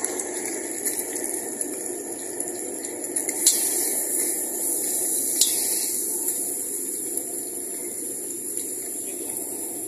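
An egg frying in hot oil in a steel wok, sizzling steadily over a low steady hum. Two sharp metal clicks come about three and a half and five and a half seconds in.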